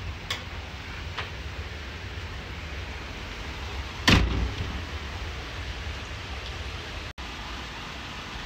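A door handles and latches: two light clicks near the start, then a loud single clunk about four seconds in as a wooden door with a metal lever handle is worked, over a steady hiss.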